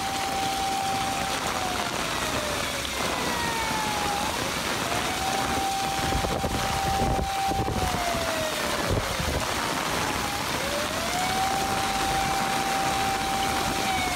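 Heavy rain and floodwater rushing across a flooded street, a steady hiss. Over it a slow wailing siren holds a tone, sinks away and climbs back, about three times. A vehicle wading through the floodwater adds a low rumble around the middle.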